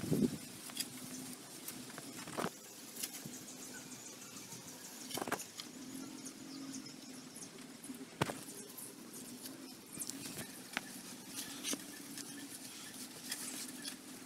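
Woven plastic sack rustling as hands grip and fold it, with a sharp crinkle every few seconds over a faint steady hum.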